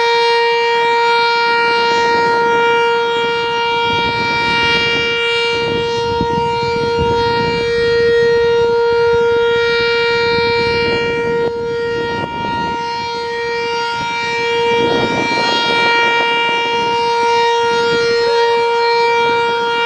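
Sentry 3V8-H outdoor warning siren sounding its steady alert signal: one loud, unwavering tone that holds its pitch throughout.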